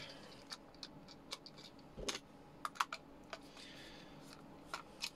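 Faint, irregular small clicks and taps as a screwdriver works the screws on the plastic housing of a plug-in mains device, with one slightly fuller knock about two seconds in.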